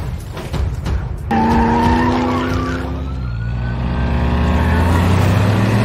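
Dubbed-in car engine sound effect, running with a deep steady hum and a slowly rising whine about halfway through.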